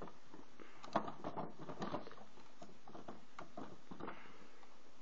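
Handling noise from a handheld camera: light clicks and rustles scattered over a steady hiss, the sharpest click about a second in.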